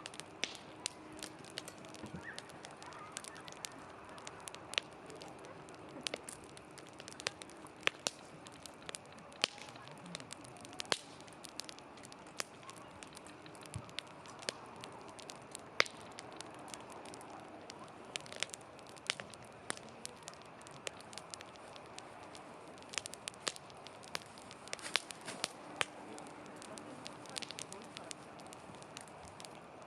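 Wood campfire crackling, with frequent sharp irregular pops and snaps over a soft steady hiss of the flames.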